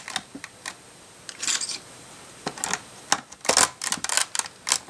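LEGO flat tiles clicking and snapping as they are pressed down onto plastic studs: a string of sharp clicks, some in quick pairs.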